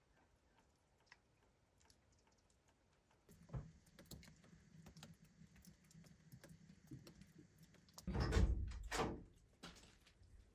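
Scattered light knocks and clicks, then two louder, deep thuds about eight seconds in.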